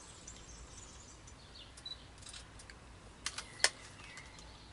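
Phone camera taking a flash selfie: a few faint clicks of handling and button presses, then two sharp shutter clicks about three and a half seconds in, the second the louder.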